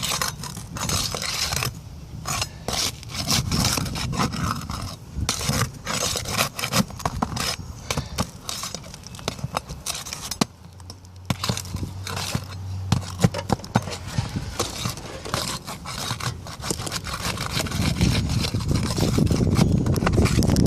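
Irregular scraping and rubbing, broken by many short knocks and scuffs.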